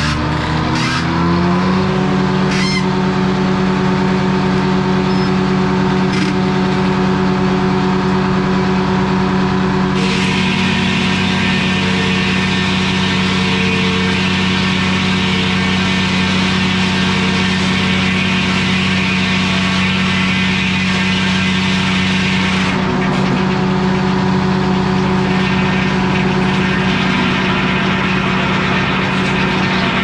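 Corley circle sawmill running, its hum rising in pitch over the first second or two as it comes up to speed and then holding steady. From about ten seconds in, the circular blade cuts lengthwise through an old wooden power pole for roughly thirteen seconds, adding a higher rushing sound, with a second, shorter cut near the end.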